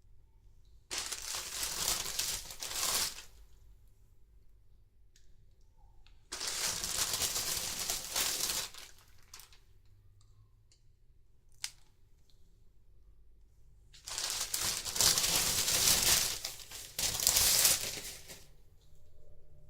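Plastic doll packaging crinkled and handled in three bursts of a few seconds each, the last the longest and loudest.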